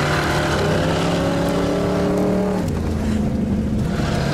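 Engine of a supercharged off-road rig revving hard while driving over sand, heard from inside the cab; the pitch drops about two-thirds of the way through and then climbs again.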